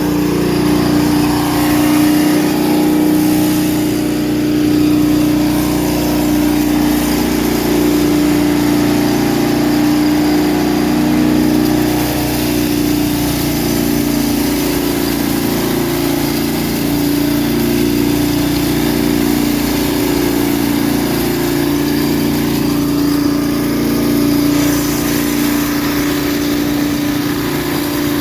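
Old air-cooled Wisconsin engine powering a McCormick Deering 4-E hammer mill, running steadily at a constant speed. It runs only so-so, which the owner puts down to it needing a tune-up.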